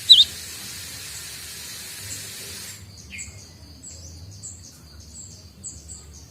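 Cinereous tit (gelatik batu) calling: one loud, falling chirp at the start, then a run of short, faint, very high chirps from about three seconds in. A steady hiss runs under the first half and stops suddenly.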